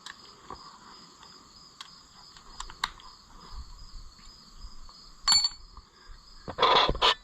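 Hand tools working on a tractor engine: a few light metal ticks, a ringing clink of metal on metal about five seconds in, then a short spell of louder rattling near the end. Crickets chirp steadily behind it.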